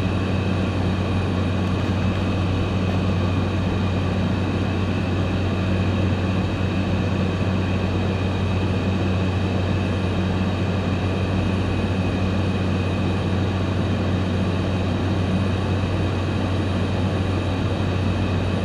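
Light propeller aircraft's engine and propeller droning steadily in cruise, heard from inside the cabin: a constant low hum with a fainter tone an octave above it.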